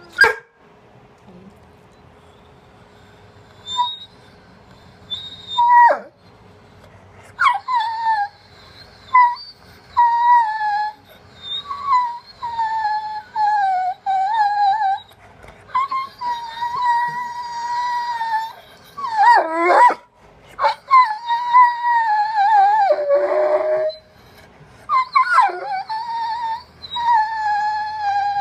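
A dog howling and whining in a long string of high, wavering cries, a few short ones at first and then near-continuous, some held for several seconds.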